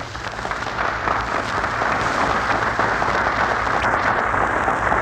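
Studio audience applauding steadily, on an old radio broadcast recording.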